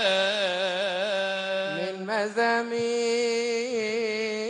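A deacon chants a melismatic Coptic Gospel melody, solo male voice through a microphone. He holds and ornaments long notes with a slight waver, breaks off briefly about two seconds in, then carries on a step higher.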